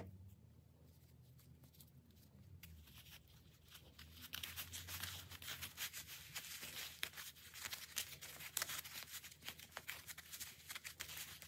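White wool roving rustling and crackling as fingers wind it tightly around a small core, the fibres rubbing against the skin. Faint at first, with the dense rustling starting about four seconds in.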